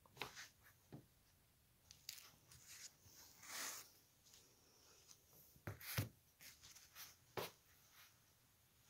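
Mostly near silence, broken by soft rustles and light knocks from hands stroking a cat's fur and brushing against the phone, with a short hissy rush about three and a half seconds in and a couple of sharper knocks around six seconds.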